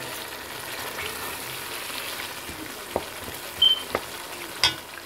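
Thick fish curry with potatoes sizzling as it fries in oil in a metal pan, stirred with a metal spoon. The spoon knocks and clinks against the pan a few times in the second half.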